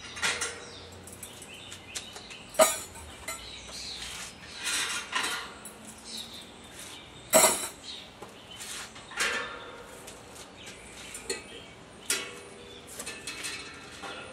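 Metal parts being handled inside a Barrelhouse steel barrel smoker: scattered clanks and clinks, with two sharp bangs, the first about two and a half seconds in and the loudest a little past seven seconds.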